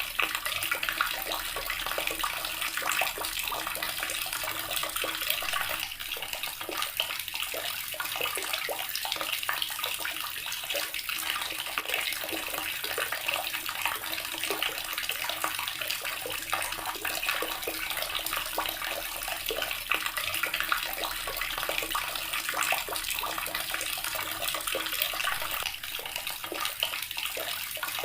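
Water running from a tap in a steady stream, splashing continuously.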